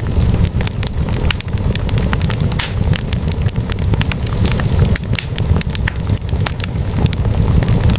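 Wood logs burning in a fireplace: frequent sharp, irregular crackles and pops over a steady low rumble of the flames.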